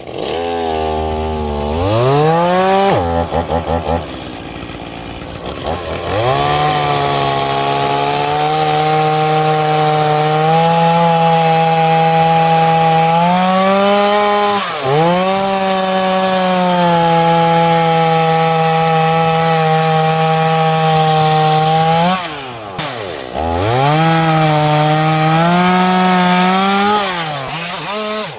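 Two-stroke chainsaw cutting into wood, revving up at the start and holding high speed under load. The engine drops off about three seconds in, dips briefly halfway through, and falls away again near the end before revving back up.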